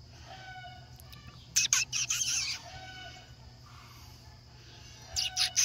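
Chickens clucking and squawking in short bursts, about a second and a half in and again near the end.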